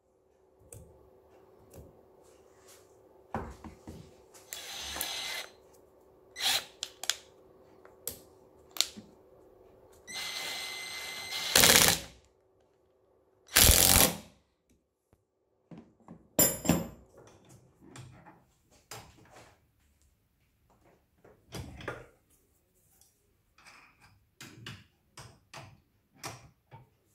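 Workshop handling sounds of metal hand tools and bolt hardware: scattered clicks and knocks, with a few louder bursts lasting a second or two, over a faint steady hum that stops about two-thirds of the way through.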